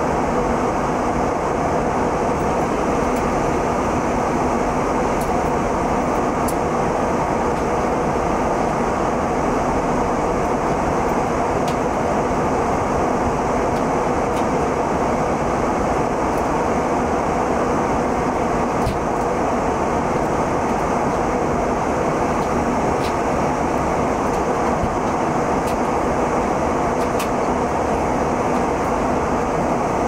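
Steady airliner cabin noise in cruise flight: the even rush of the jet engines and the air over the fuselage, low and unchanging.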